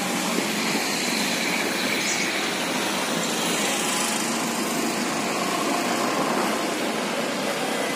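Steady, even background noise with no distinct events, like road traffic.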